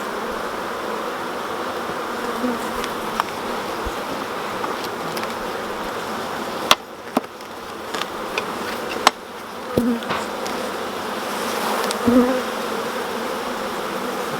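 Honeybee colony buzzing steadily around an opened hive during an inspection. A few sharp clicks and knocks come through about halfway in.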